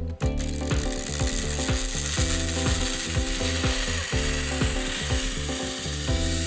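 Zipline trolley's pulley wheels running along the steel cable during a ride: a steady rattling whir that sets in just after the start.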